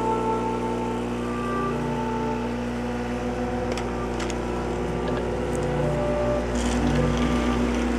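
Background instrumental music of held, slowly changing notes over a steady low drone, with a few faint clicks about halfway through.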